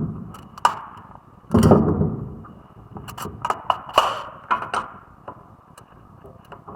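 A heavy thud about a second and a half in, then a run of sharp clicks and knocks.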